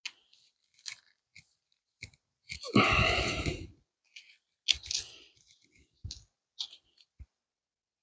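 Victorinox Swiss Army Camper pocket-knife blade whittling a wooden stick into a pot hook: a string of short cuts and shaving scrapes, with one longer, louder stroke about three seconds in.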